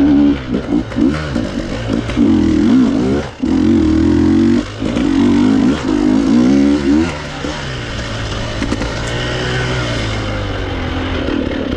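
Enduro motorcycle engine revving in repeated surges, pitch climbing and falling with the throttle, dropping off briefly about three seconds in; from about seven seconds it settles to a steadier, lower note.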